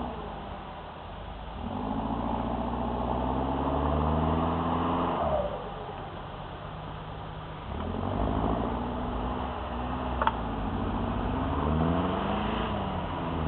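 Off-road vehicle engine revving up and easing off in waves, its pitch climbing and dropping several times. There is a single sharp click about ten seconds in.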